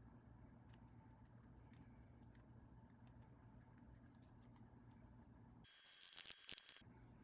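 Faint, scattered small clicks over a low steady hum, with a brief cluster of quicker, sharper clicks and scraping near the end.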